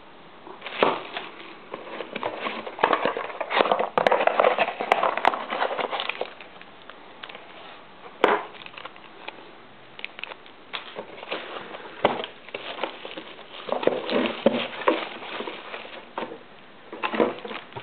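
Crinkling and rustling of bubble wrap and plastic bags being handled, in irregular bursts, with one sharp knock about eight seconds in.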